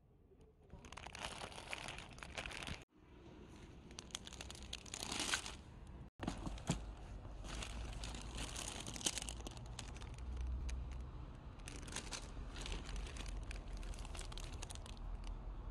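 Clear plastic bags crinkling in irregular bursts as a hand rummages through a box of bagged fishing lures, with two brief sudden dropouts.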